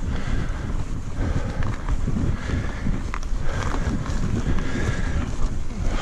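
Mountain bike rolling fast down a dirt trail: wind rumbling on the microphone, with tyre noise on the dirt and scattered clicks and rattles from the bike over bumps.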